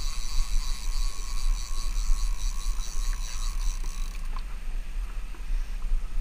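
Fishing reel's click ratchet clicking rapidly and evenly as line runs through it, stopping suddenly about four seconds in, over a steady low rumble.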